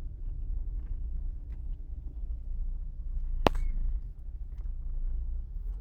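Low, steady road and engine rumble inside a moving ZAZ Slavuta, with one sharp click-knock about three and a half seconds in.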